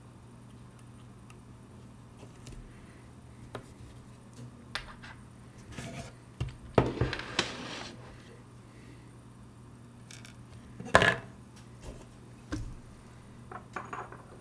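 Small metal watchmaking tools, a staking tool and tweezers, clicking and clinking as they are handled on a workbench. There is a short clatter about seven seconds in, and one sharper knock about eleven seconds in.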